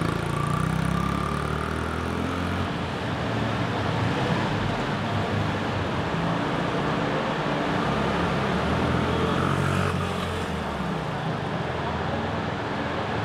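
Honda CRF50's small single-cylinder four-stroke engine running as the minibike is ridden, its pitch rising and falling with the throttle, freshly repaired and running after a push start.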